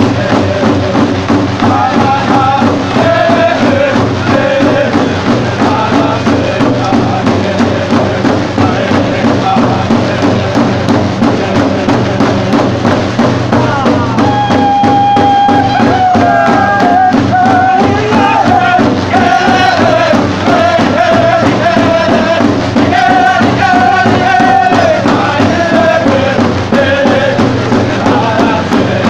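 A group of hand drums (round single-headed frame drums) beaten with sticks in a steady, even unison beat while many voices sing a traditional Dene Tha' tea dance song. From about halfway, long held sung notes stand out above the drumming.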